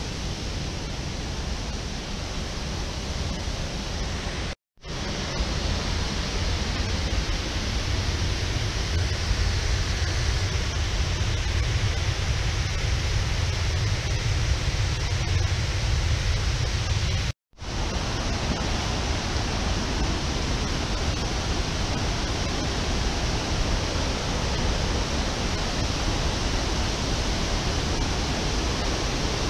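Steady rushing roar of a river waterfall. A deeper rumble joins it from about 5 to 17 seconds in. The sound cuts out completely for an instant twice, about 4.5 and 17.5 seconds in.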